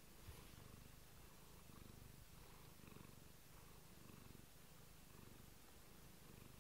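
A domestic cat purring faintly and steadily, close to the microphone.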